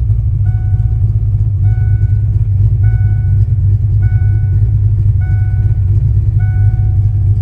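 Fox-body Ford Mustang engine running with a steady, loud low rumble, now running smoothly with the misfire cured. A short beep repeats about once a second over it.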